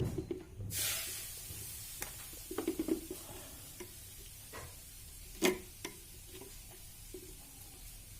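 Clicks and knocks of hand work on a UPS battery backup and its battery wires, with the sharpest knock about five seconds in. A steady hiss starts suddenly just under a second in.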